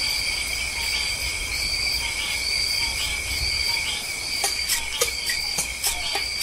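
Insects chirping in a steady high trill at two pitches, the higher one pulsing about once a second. A few sharp clicks come in over the last two seconds.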